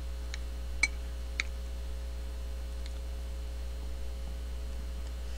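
A metal spoon clicking lightly against a ceramic plate a few times while eating, the sharpest clicks about one and one and a half seconds in, over a steady low hum.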